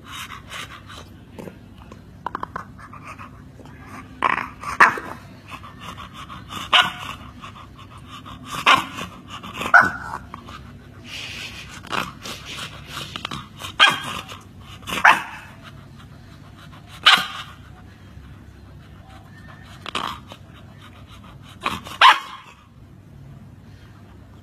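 A chow chow puppy barking: about a dozen short barks and growls, spaced one to two seconds apart.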